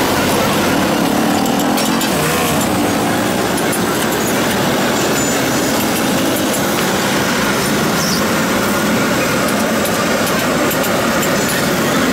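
Steady street traffic noise, with small motor vehicle engines running continuously.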